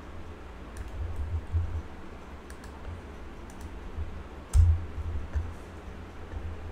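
Scattered clicks of a computer mouse and keyboard during copying and pasting of commands, with a low thump about four and a half seconds in, the loudest sound, over a steady low hum.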